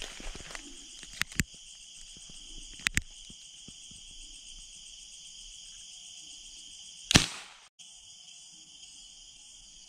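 Night insects, crickets among them, trilling steadily. A few light clicks sound in the first three seconds, and about seven seconds in a single sharp hunting shot cracks out, the loudest sound, cut off abruptly.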